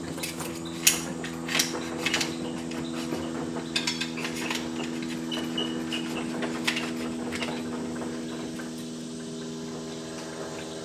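Metal gun parts clicking and scraping as the barrel is worked onto the magazine tube: scattered sharp metallic clicks and taps, the loudest about a second in, over a steady hum.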